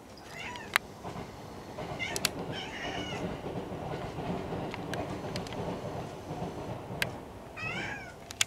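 Cat giving short chirping calls in small bunches (at the start, around two to three seconds in, and near the end): the chatter of a cat fixed on a moth it cannot reach. A few sharp clicks and a low rumbling noise run underneath.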